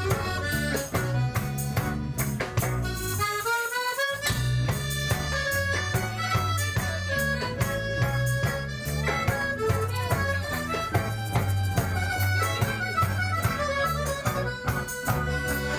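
Live band playing an instrumental tango passage, with a piano accordion carrying the melody over electric guitar, bass and drum kit. About four seconds in, the bass and drums drop out for a moment under a rising accordion run, then the full band comes back in.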